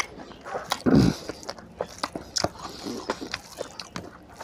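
Close-miked wet chewing and lip-smacking of a mouthful of oily mutton fat curry and rice, with many short clicky smacks and a single low thump about a second in.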